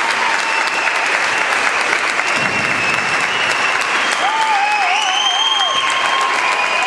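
Audience applauding steadily, with a few long whistles over the clapping.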